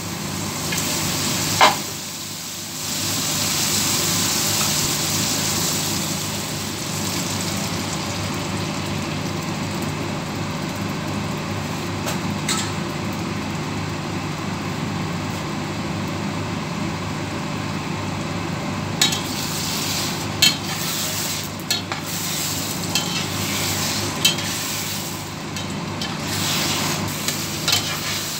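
Scrambled eggs with sausage and vegetables sizzling in a frying pan, a steady frying hiss. A sharp click comes about a second and a half in, and a run of sharp clicks of utensil or pan comes in the last ten seconds.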